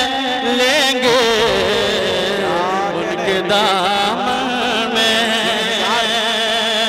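A man singing a naat in Urdu, amplified through a microphone. He draws out long, ornamented notes that waver and slide in pitch, over a steady low tone.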